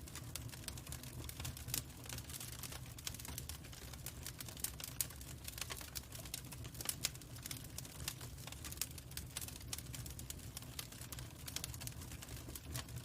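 Log fire crackling: irregular snaps and pops, some sharper and louder than others, over a steady low rumble of the burning fire.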